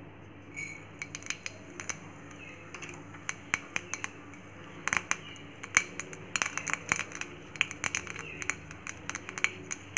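Mustard seeds spluttering in hot oil in a small tempering pan: scattered sharp pops and crackles that come more often from about halfway through. The popping is the sign that the oil is hot enough and the seeds are done for the tempering. A faint steady low hum runs underneath.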